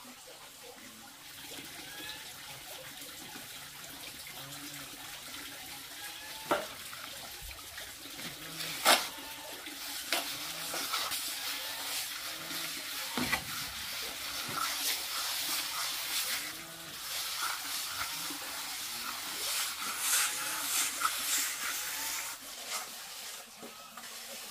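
Trowel and hand float scraping and rubbing wet cement render onto a brick stove: a gritty, wet rasping that grows louder and busier about halfway through, with a few sharp taps of the tool.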